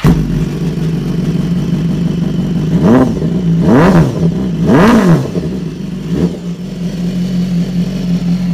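BMW S1000RR inline-four sportbike engine, breathing through an aftermarket Racefit exhaust, firing up and idling loudly. About three to five seconds in it is revved in three sharp throttle blips about a second apart, then a smaller blip, and it settles back to idle.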